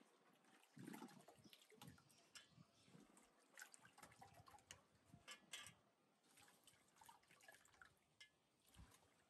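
Faint water splashing and dripping as hands rinse dried maize kernels in a metal basin, scooping up handfuls and letting the water run back, with scattered small splashes and clicks.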